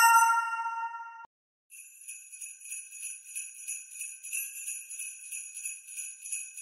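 A single bell-like chime that rings for about a second and cuts off suddenly, then bells jingling in a steady shaken rhythm.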